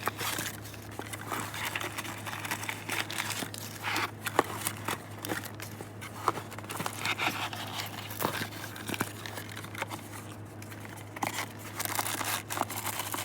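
Paper money and other contents of a cash box being handled, with irregular crinkling rustles and small clicks throughout over a steady low hum.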